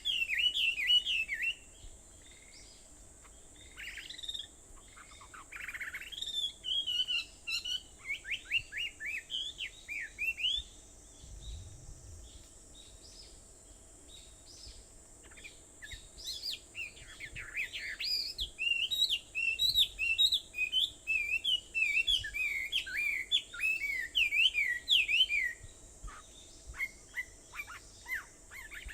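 Wild songbirds singing: quick runs of high chirps and trills in bouts, thinning out to a few calls in the middle and building again later, over a steady high-pitched hiss.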